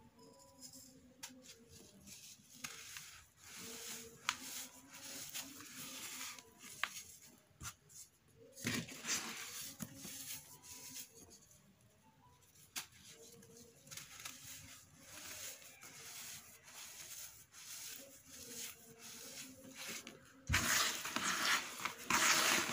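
Dry sand-and-cement balls crushed and crumbled by hand, giving a gritty crumbling with grains and lumps pattering back into the tub. It comes in spells, and a louder, denser spell of raking through the crumbled grit starts near the end.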